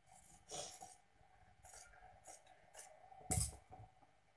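Tailoring scissors snipping through a paper pattern in several short, faint cuts, with a louder rustle and knock about three seconds in as the cut strip comes free.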